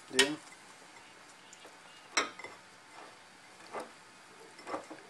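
Kitchen dishes and utensils clinking and knocking as catfish pieces are dipped in an egg bowl and set on the grill: four short knocks, the first the loudest, over a faint steady hiss.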